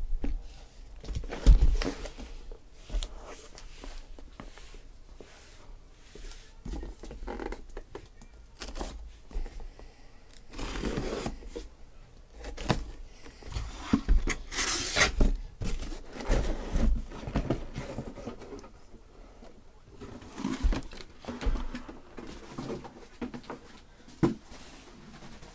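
A cardboard shipping case being opened by hand: irregular scraping, rubbing and rustling of the cardboard flaps and taped seams, with a few thumps as the shrink-wrapped boxes inside are pulled out and handled.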